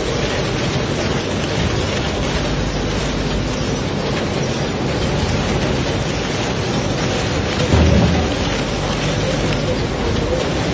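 Steady, loud din of packing-line machinery and conveyor in a snack factory, with a short low thump about eight seconds in.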